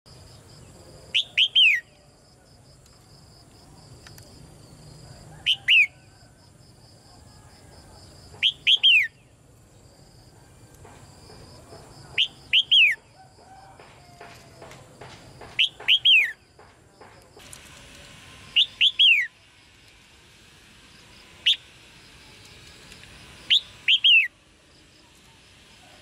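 Red-whiskered bulbul giving sharp chirping calls, each a quick group of two or three falling notes, repeated about eight times at three- to four-second gaps. This chirping call is used to stir male bulbuls into song.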